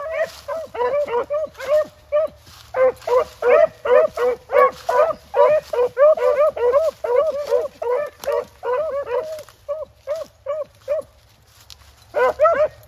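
Rabbit hounds baying on a rabbit's trail, several dogs giving rapid, overlapping barks at more than one pitch. The barks ease off for about a second near the end, then start again.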